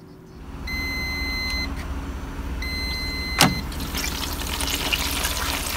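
Gourmia air fryer running with its fan humming, then two long electronic beeps about a second each as the cooking cycle ends. A sharp click at about three and a half seconds, as the basket is pulled open, is followed by a rising sizzle from the hot pork.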